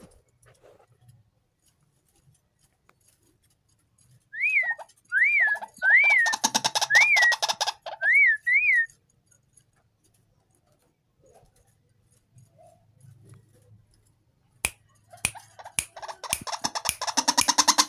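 White-breasted waterhen calling: six short rising-and-falling whistled notes a little under a second apart, overlapped halfway through by harsh rapid croaking, then a loud harsh rapid croaking series starting near the end.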